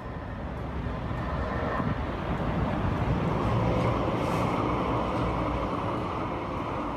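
Street traffic noise: a passing vehicle's rumble swells to its loudest about halfway through, then slowly fades.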